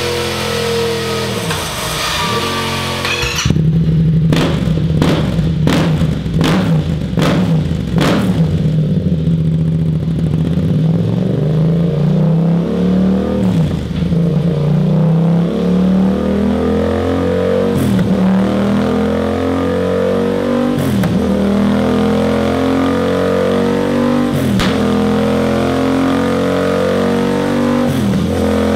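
Yamaha XSR700's 689 cc parallel-twin engine run hard on a dyno, revving up and down. About three seconds in, the sound changes from the stock exhaust to a Scorpion Serket Taper full-system exhaust. Soon after comes a run of sharp cracks, then repeated climbs in engine pitch, each broken off by a brief dip.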